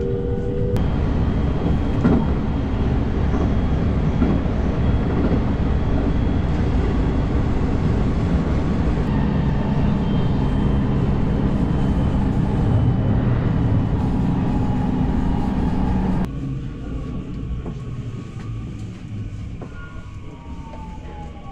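Electric commuter train running at speed, a loud steady rumble of wheels on rail heard from inside the car. About sixteen seconds in, the sound drops to a quieter run as the train draws into a station, with a falling electric-motor whine as it slows near the end.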